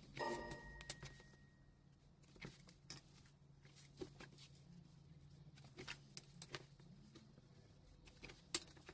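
Near silence with a faint room hum and scattered soft taps and rustles from lace curtain fabric being handled and marked with a wooden ruler and marking pen.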